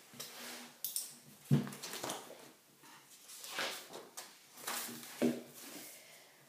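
A girl's irregular breathy sounds, about six of them spread a second or so apart, two with a brief low throaty grunt.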